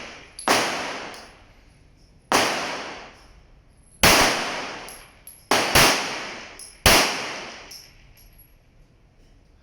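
9mm Glock 34 pistol firing six shots one to two seconds apart, two of them in quick succession near the middle. Each shot has a sharp crack and a long reverberant tail.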